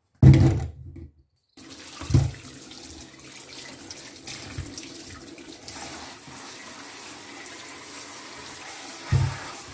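Kitchen tap running into a stainless steel sink as guavas are rinsed and rubbed under the stream. There are dull thuds as the fruit tumble from a bowl into the sink, the loudest about a quarter-second in, before the water starts, and two more later.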